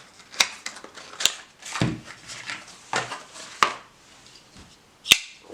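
Dulotec KARMA XL folding knife being handled, with several sharp clicks and softer knocks and swishes in between.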